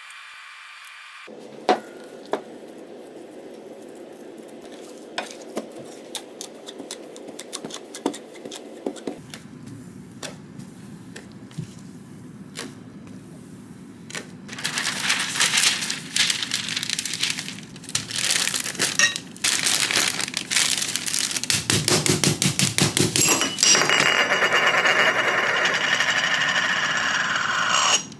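Light clicks and taps, then a metal bench scraper chopping and scraping crumbly dough across a silicone baking mat in quick, rough strokes. Near the end, a rolling pin rolls dough flat under a sheet with a steadier rubbing sound.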